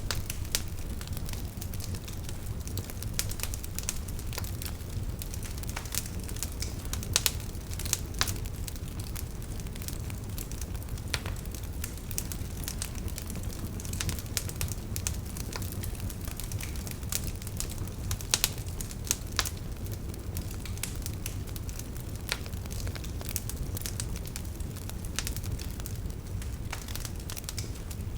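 Wood fire in a fireplace crackling, with irregular sharp pops, a few louder than the rest, over a steady low rumble.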